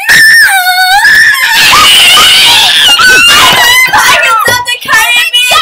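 Young girls screaming in loud, high-pitched shrieks. A held shriek opens, then harsher screaming and shorter shrieks follow.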